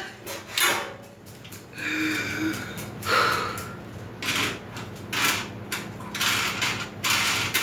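Short scraping and clattering bursts from hand-assembling a metal grill, as a screw or bolt is worked to tighten it, roughly one burst a second.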